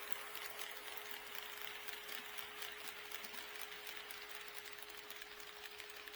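HO scale model train running on track: quick irregular clicking of wheels over the rails, over a steady motor hum and a light hiss.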